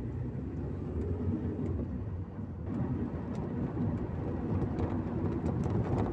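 Car driving, with engine and tyre noise heard from inside the cabin, getting a little louder about two and a half seconds in.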